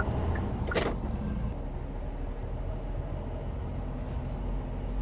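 Cargo truck's engine running with a steady low hum, and a short hiss just before a second in.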